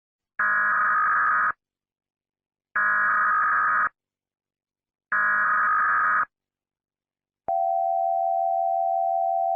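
Emergency Alert System SAME header: three identical buzzy digital data bursts of about a second each, a little over a second apart, followed about a second later by the long steady EAS attention tone.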